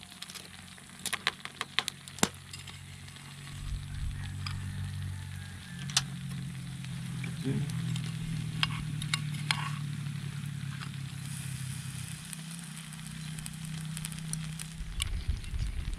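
Balut and hot dogs boiling in a chili-garlic sauce, sizzling with scattered sharp crackles and pops. A low steady hum runs beneath from about three seconds in.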